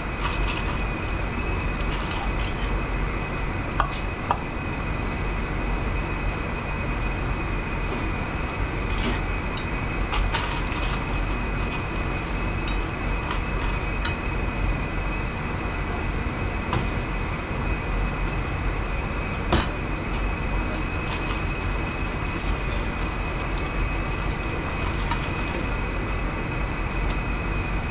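Steady drone of a commercial kitchen's background machinery with a thin, steady high whine over it. Now and then a light click as chopsticks tap a stainless steel mixing bowl.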